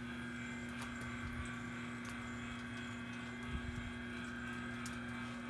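Steady mechanical hum of a rotisserie smoker's turning racks and drive, with faint high chirps repeating about twice a second and a few soft low knocks about three and a half seconds in.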